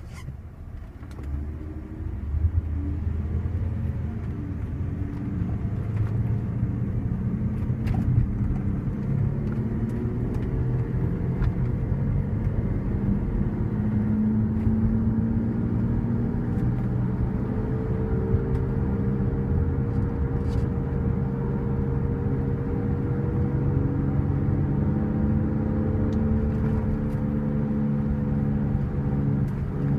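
2005 Cadillac SRX humming as it drives: a steady low drone with several tones that drift slowly upward, after building up over the first couple of seconds. The uploader puts the hum down to a worn wheel bearing.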